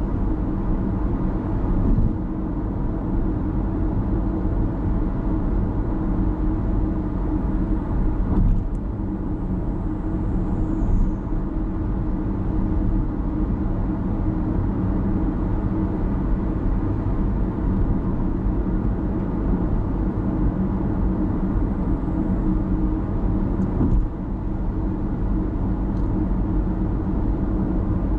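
Car cruising steadily on an expressway: a continuous low drone of tyre and engine noise, with a few faint clicks.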